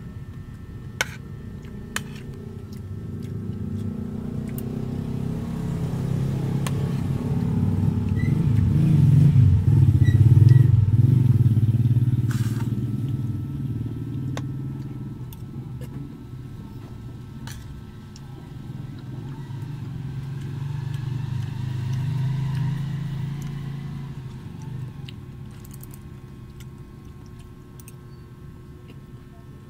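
Low engine rumble of passing road vehicles, swelling to a peak about ten seconds in, fading, then rising again more weakly a little past twenty seconds. Two sharp clicks of a metal spoon against a plate about one and two seconds in.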